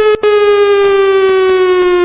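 Federal Signal 2001 outdoor warning siren sounding one loud wail tone that slides slowly down in pitch, with a brief break just after the start.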